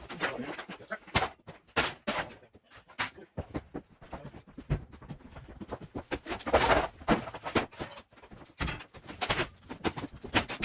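A run of irregular knocks and thuds, like objects being handled, knocked and dropped during cleanout work, with a louder stretch of clatter about six to seven seconds in.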